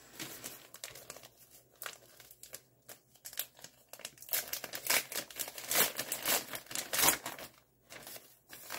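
Plastic mailer bag crinkling and rustling as it is handled and opened, in irregular crackles that are loudest about halfway through.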